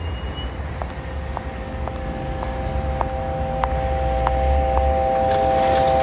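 Intro music: a held synth chord with a soft tick about twice a second and a rising swell toward the end, over low traffic rumble.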